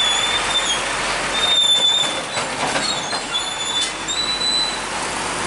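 Heavy box truck with a drawbar trailer rolling slowly over a railway level crossing on a wet road: a steady hiss of tyres and running gear, broken by several short, thin, high-pitched squeals.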